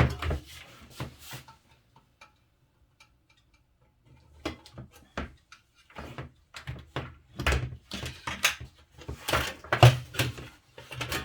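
Metal casing of a computer power supply being handled and opened by hand: a knock, a few light clicks, a short pause, then a run of knocks and clatter.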